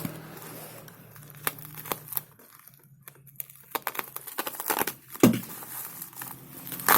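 Plastic packaging crinkling and rustling as it is handled, with scattered clicks; the loudest crackle comes about five seconds in, and another just before the end.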